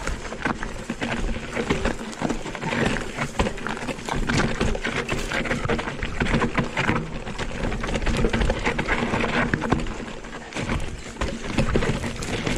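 Canyon Spectral:ON electric mountain bike descending a loose dirt trail: tyres crunching over dirt and stones, with a constant clatter of many small knocks from the bike and a steady low rumble.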